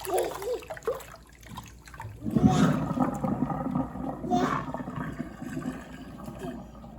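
Water draining from a kitchen sink in a whirlpool down the plughole, rushing in suddenly about two seconds in and easing off after a few seconds.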